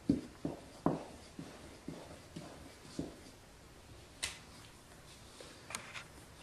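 Wooden spoon stirring flour into a stiff dough in a plastic mixing bowl: a string of dull knocks and scrapes, about two a second at first, then a couple of sharper clicks later on.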